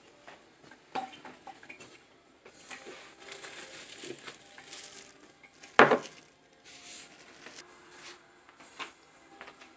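Wooden pestle knocking and scraping against a clay mortar while bruising chopped tomato, olives and chili for som tum, with scattered light knocks and one louder knock about six seconds in.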